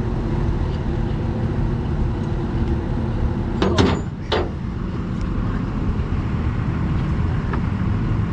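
A vehicle engine idling steadily, with three sharp knocks close together about three and a half to four and a half seconds in.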